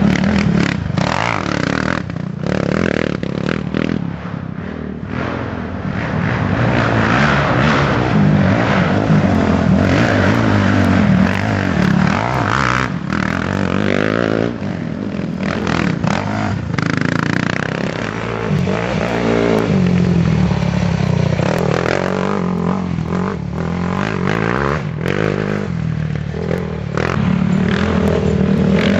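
Racing sport quad engines revving hard, the pitch rising and falling with throttle and gear changes as quads ride past on a dirt woods trail. One quad passes close at the start and fades, and engines grow louder again as another quad approaches near the end.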